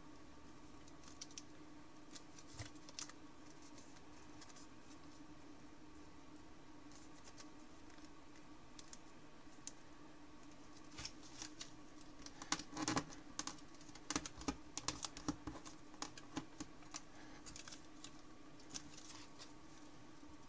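Thin 50 g origami paper crinkling and crackling under the fingers as it is folded and shaped, in scattered small clicks that come thick and fast a little past the middle, over a faint steady hum.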